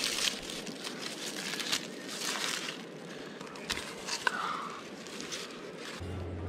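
Dry, charred corn husks rustling and crackling in several short tears as they are stripped off a fire-roasted ear of corn. A low steady hum starts near the end.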